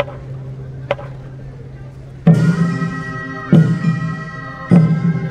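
Traditional Korean military band music: a long-held low horn note and a couple of sharp clicks, then, from about two seconds in, loud percussion strikes about every second and a quarter with pitched ringing over them.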